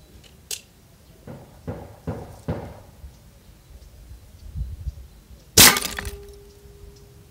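Airgun buckshot striking a compact disc, which shatters with one loud sharp crack about five and a half seconds in, followed by a steady ringing tone. A few softer knocks come before it.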